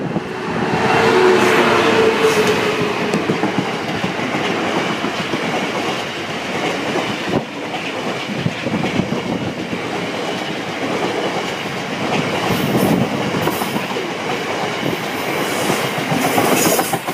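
Freightliner Class 66 diesel locomotive passing close, its engine tone heard over the first few seconds, followed by a long rake of coal hopper wagons rolling past in a steady rumble of wheels on rail.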